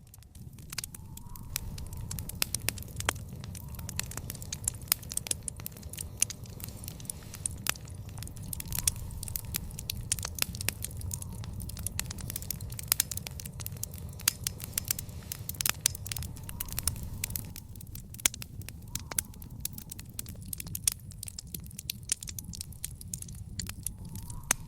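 Wood fire in an outdoor fire pit crackling, with frequent irregular sharp pops and snaps over a steady low rumble.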